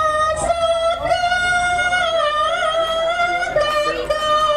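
A woman singing a Javanese song through a PA sound system, holding long high notes with a wavering turn in the pitch about halfway through.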